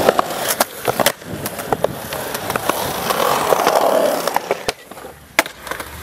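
Skateboard wheels rolling on rough concrete, with several sharp wooden clacks from the tail popping and the board landing. The rolling swells in the middle and fades lower near the end.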